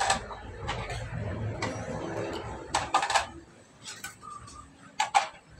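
Dishes clinking against each other as they are washed by hand: a few sharp clinks a second or two apart, the loudest near the end, with softer handling sounds between.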